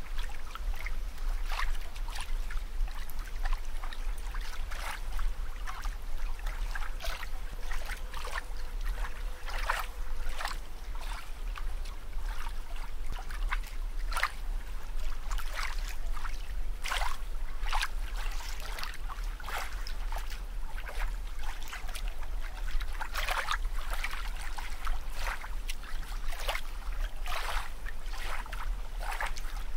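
Bubbling, trickling water, heard as a string of short irregular bubbly pops over a steady low hum.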